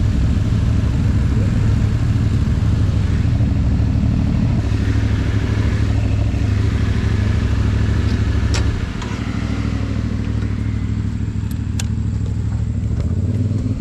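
Motorcycle running at road speed with a heavy, steady low rumble. It eases slightly about nine seconds in, and a few sharp clicks are heard.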